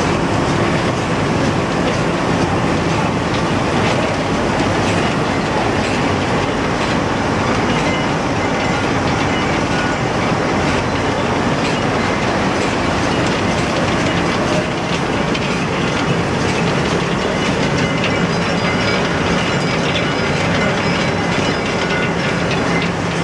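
Feed pellet mill running steadily while pressing feed into pellets: a loud, even mechanical noise with a constant low hum and fine rapid ticking.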